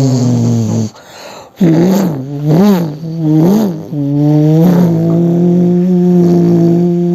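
A man's voice imitating a racing car engine. A held engine drone breaks off about a second in for a short breathy hiss, then three quick revs rise and fall in pitch, and the sound settles into a steady drone.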